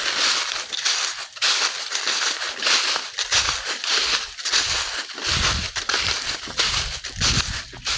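Crunching footsteps of a person hiking at a steady walking pace, about two steps a second.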